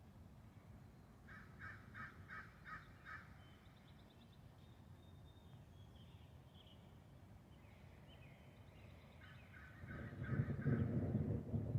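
A bird gives two short runs of rapid repeated call notes, with faint high chirping from small birds behind. Near the end a low rumble of thunder swells up and becomes the loudest sound.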